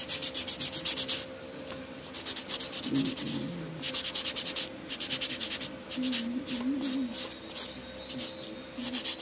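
Foam nail buffer block rubbed quickly back and forth over fingernails, a dry scratchy rasping in several runs of fast strokes with short pauses between them. The nails are being buffed smooth before the top coat.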